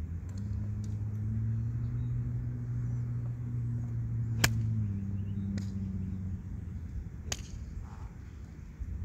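A golf club strikes a ball off a practice mat once, a sharp crack about four and a half seconds in, followed by two fainter clicks. A low, steady motor hum runs through the first half and fades out just after the strike.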